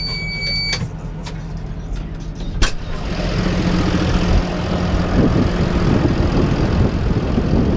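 Deutz-Fahr 6150 tractor's diesel engine running steadily, heard from the cab. A short electronic warning beep sounds at the start and a sharp click comes about two and a half seconds in; from about three seconds on the engine is louder and fuller, with the cab door open.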